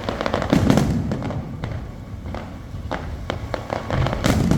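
Fireworks display: aerial shells bursting with a steady run of bangs and crackles, a louder cluster of booms about half a second in and another near the end.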